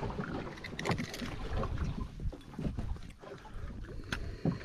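Wind buffeting the microphone and water lapping at a small boat's hull, with a few light knocks.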